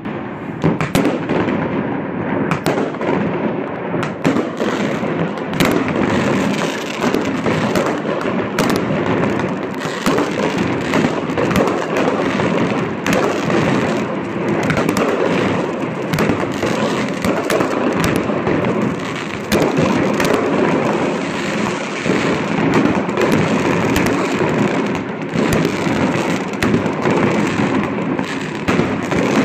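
Many fireworks going off all over a city at once: a continuous mass of overlapping bangs and crackling, with sharp reports coming many times a second and no let-up.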